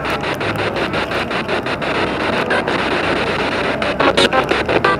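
SB7 spirit box radio scanning through stations: a steady hiss of radio static chopped about seven or eight times a second as it sweeps, with brief snatches of broadcast sound near the end.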